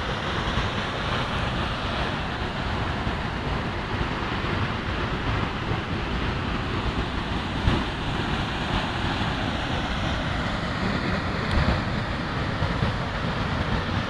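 Steady rushing of a tall waterfall in heavy monsoon flow, with gusting wind buffeting the microphone.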